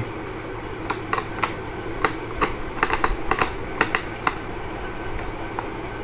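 Irregular small sharp clicks of a Phillips screwdriver turning a small screw in the plastic visor-lock mechanism of a Steelbird SBH-17 Terminator helmet, tightening the screw whose loosening stops the visor from locking. The clicks come mostly in the first four seconds or so.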